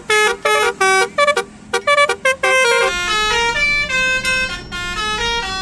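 Indonesian 'telolet' multi-tone bus horn playing a tune: short separate toots at changing pitches for about three seconds, then a quicker run of notes stepping up and down.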